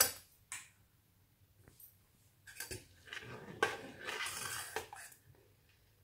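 A metal spoon stirring thickening custard in a stainless steel pot, scraping along the pan with a few light clinks, the scraping mostly in the second half.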